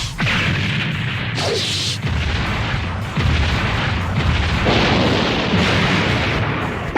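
Neon Genesis Evangelion anime sound effect: a long, continuous explosion-like rumble with crackle, growing louder about three seconds in.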